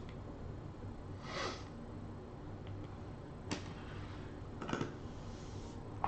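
Quiet room tone with a steady low hum, broken by a few scattered sharp clicks and a short breathy sniff about a second in.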